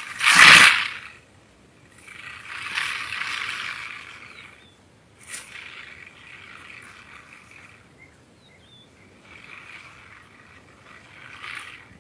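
Porcupine rattling its raised quills in a defensive display: repeated dry hissing rattles, each lasting one to two seconds, after a loud rush of noise about half a second in.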